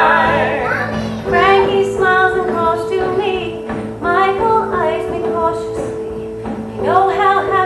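Live stage music heard from the audience: a singer's vocal phrases over steady held accompaniment notes. Three sung phrases come in, about a second in, about four seconds in and near the end.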